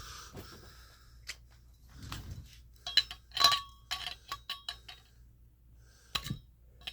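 Metal multitool clicking and clinking as its bottle opener is tried on a bottle: a quick run of sharp clicks with a short metallic ring about three seconds in, then one more click near the end.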